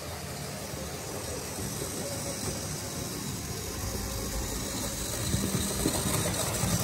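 Tri-ang Hornby 00-scale tender-drive steam locomotive model running with a train of vans: the electric motor whirring and the wheels rolling over the rails and points, growing louder toward the end.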